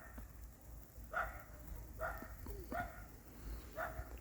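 A dog barking: a series of short barks about a second apart.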